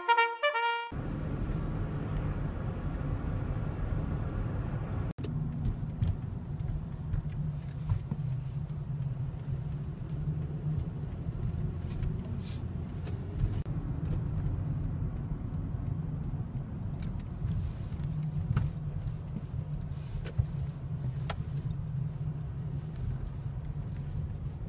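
Inside a moving car: steady low engine and road rumble, with scattered light clicks and rattles.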